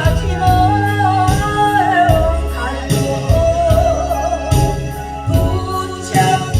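Trot song backing track with a steady beat and held bass notes under a wavering melody line that bends in pitch.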